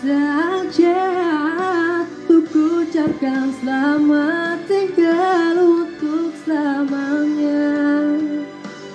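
A young man singing a Malay pop ballad into a handheld microphone, with wavering ornamented runs and then a long held note that trails off near the end.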